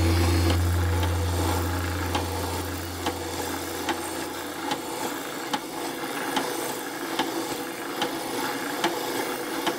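Sanding drum on a drill press, moved up and down by a drill-driven linkage to work as an oscillating sander, rubbing and rasping against the edge of a plywood piece. A sharp click comes about every 0.8 s, in step with the drum's up-and-down stroke. A deep hum at the start fades away over the first five seconds.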